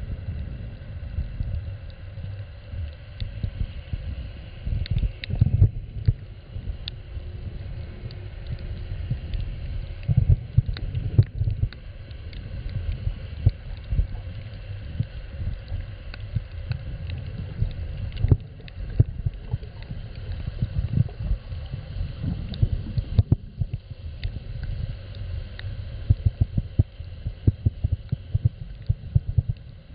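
Muffled underwater sound picked up by a camera held below the surface: an uneven low rumble of water movement, with scattered clicks and crackles throughout.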